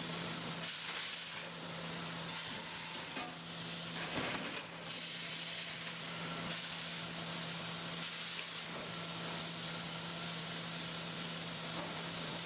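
Sawmill machinery running with a steady hissing noise and a constant hum, with a few brief knocks in the first few seconds.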